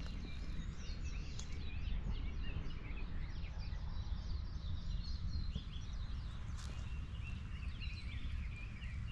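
Small birds chirping, a dense run of many short, quick calls throughout, over a steady low rumble.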